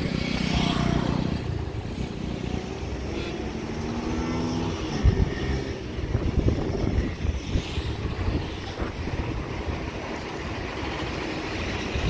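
Wind buffeting the microphone over the running of a motor vehicle engine, whose tone comes up near the start and again about four seconds in.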